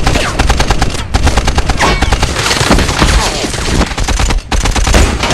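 Sustained automatic gunfire, many rapid shots overlapping, with a brief break about four and a half seconds in.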